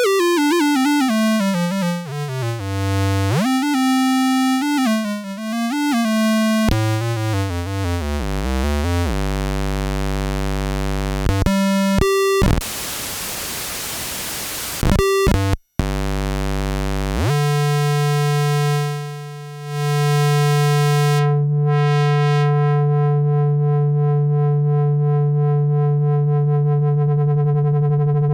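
Yamaha CS01 analog monosynth playing gliding notes that slide up and down in pitch, then a held low bass note. Near the middle comes a burst of white noise lasting a couple of seconds, followed by a long sustained buzzy low note held to the end.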